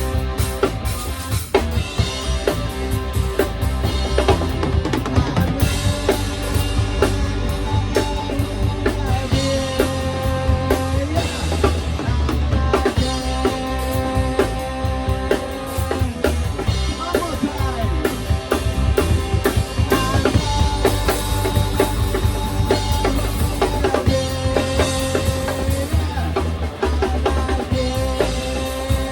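Rock band playing an instrumental stretch of a punk song: a drum kit with snare and bass drum keeps a driving beat under sustained guitar chords.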